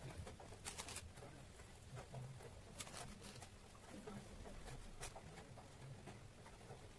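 Near silence with a few faint, brief rustling ticks as fingers sprinkle dry rangoli powder onto a tiled floor.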